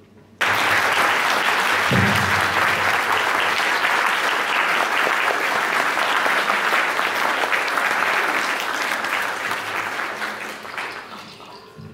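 Audience applauding. The applause starts suddenly about half a second in, holds steady, and dies away over the last two seconds.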